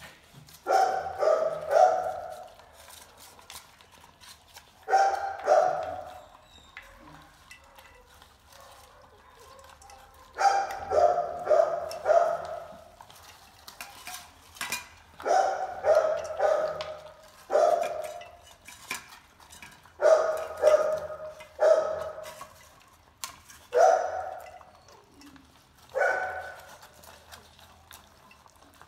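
Dog barking in short runs of two to four barks every few seconds. Light clinks of stainless steel food bowls come between the barks as puppies eat from them.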